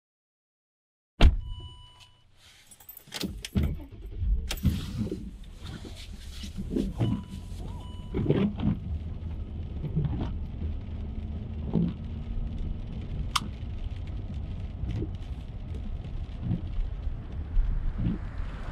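Car interior sounds: a sharp click about a second in, a brief warning chime, keys jangling and a few thuds, then the engine running with a low steady rumble and occasional knocks.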